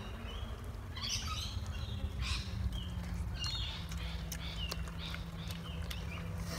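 Wild birds chirping in the bush, a string of short, high calls, over a steady low hum.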